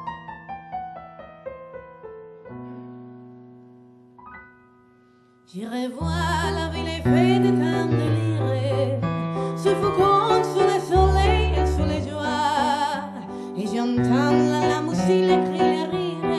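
Piano-and-voice duo: a keyboard piano plays a solo introduction of falling runs that dies away. About five and a half seconds in, a woman starts singing into a microphone over the piano accompaniment.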